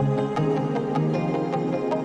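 Background music: a gentle, calm instrumental with regular light plucked notes over sustained tones.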